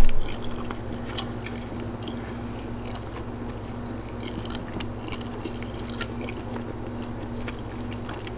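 A person chewing soft scrambled eggs and bread, with small wet mouth clicks scattered throughout, over a steady low electrical hum.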